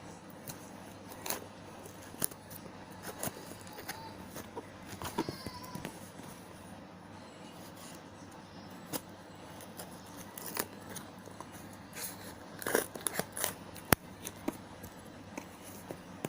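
Unboxing a parcel by hand: packaging rustling and being snipped, with scattered clicks and taps. The sharpest click comes near the end.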